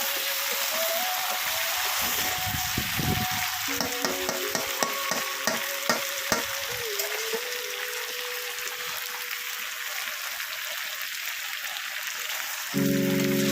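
Chicken curry sizzling as it fries in a pan, with a spoon clicking against the pot several times about four to six seconds in as it is stirred. Background music comes in louder near the end.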